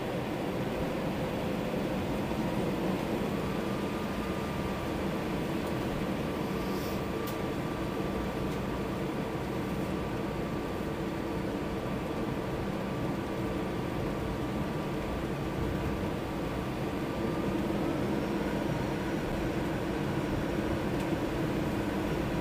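Cabin noise of an Airbus A321-211 heard beside its CFM56 turbofan engine at high power: a steady rushing drone. A thin whine sits in the drone and steps up in pitch about three seconds in and again near the end, where the noise grows slightly louder.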